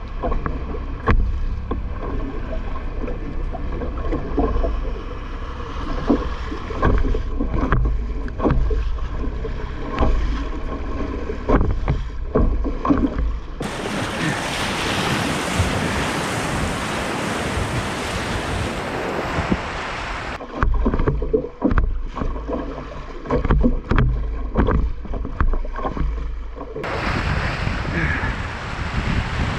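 Fast river water rushing and churning around a kayak running rapids, with wind buffeting the microphone and many short slaps of water against the hull and paddle. About fourteen seconds in, a brighter, even rush of breaking whitewater takes over for several seconds, and it returns near the end.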